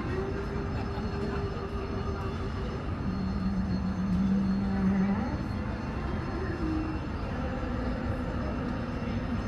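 Steady low rumble of a Boeing 757-300 jet airliner's engines as it taxis in to the gate, with a few held tones over it that shift in pitch about halfway through.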